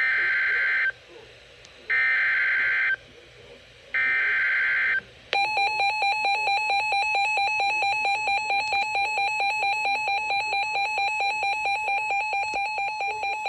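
Emergency Alert System SAME data header: three bursts of about a second each of screechy digital tones, followed by about nine seconds of a pulsing EAS attention tone, marking the start of a new severe thunderstorm warning.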